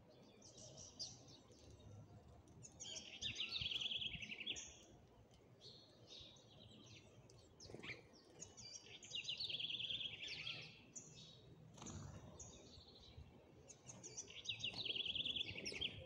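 Small birds chirping, among them the house sparrows feeding on the ground, with short high chirps throughout. A fast trill of about a second and a half comes three times, roughly every six seconds.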